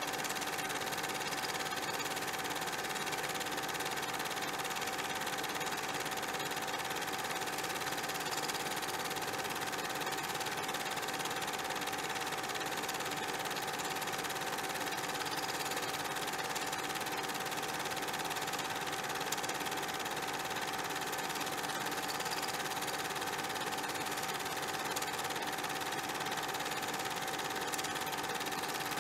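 A steady mechanical whir with a constant high hum, unchanging in level.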